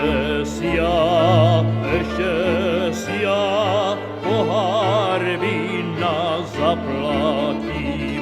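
Slovak folk song music: violins playing a vibrato melody over a sustained bass accompaniment, in an instrumental passage between sung verses.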